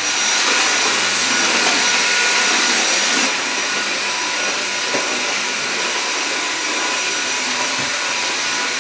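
A loud, steady rushing noise like a running motor, with faint steady whining tones above it.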